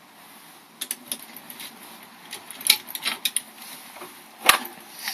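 Light metallic clicks and clinks from handling a lever mortice lock, its key and picking tools on a bench: a scattered run of short taps with one sharper click about four and a half seconds in.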